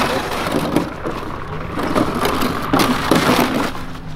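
Plastic crate of gear dragged across packed snow and ice, scraping and crunching irregularly, with footsteps in the snow.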